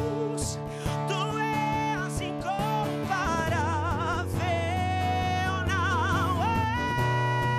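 Male vocalist singing a gospel worship song over acoustic guitar, holding long notes with a wide vibrato and climbing to a long high note about two-thirds of the way through.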